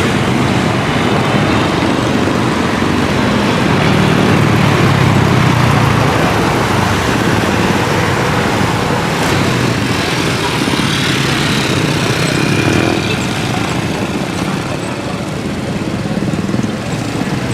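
Jet airliner engine noise near the runway, a loud steady rush that swells about a third of the way in and eases slightly near the end.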